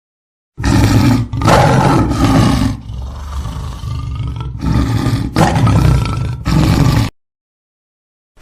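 A large animal roaring: a run of loud, deep roars with a quieter growl in the middle, starting about half a second in and cutting off abruptly about seven seconds in.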